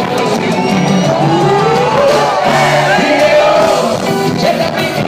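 A band playing with a male singer's voice carrying the melody over it.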